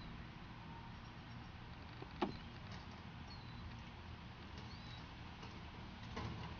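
Faint metal clicks from a key working the lock of a cluster mailbox's metal door: one sharp click about two seconds in and a short rattle near the end, over a low steady hum.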